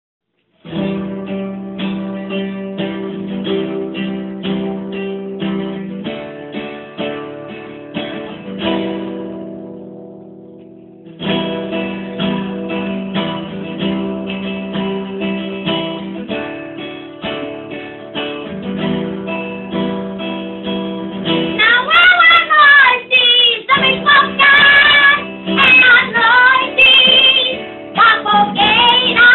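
Acoustic guitar strummed in steady chords, fading out and stopping for a couple of seconds near the middle before starting again. About two-thirds of the way through, a loud, high-pitched voice starts singing over the guitar, its pitch wavering strongly.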